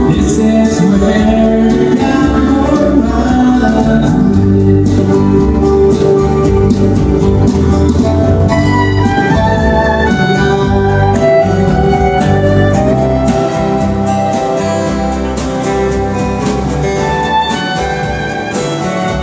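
Live country music: a man singing over strummed acoustic guitars, with a fiddle joining in.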